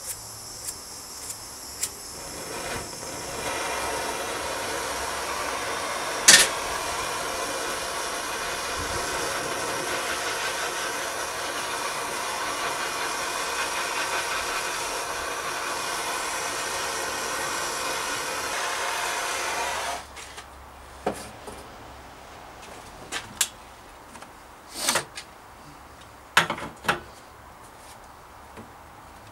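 Electric heat gun blowing steadily for about seventeen seconds, heating the seat tube around a seized aluminium seat post, then switched off abruptly. A few knocks and clicks follow.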